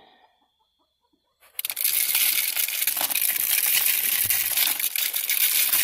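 Chicken scratch grain being poured into a plastic bait container, a steady hiss of falling seed that starts about a second and a half in.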